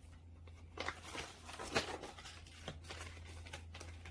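Faint rustling with a few light taps and clicks, the loudest a little under two seconds in, over a steady low electrical hum.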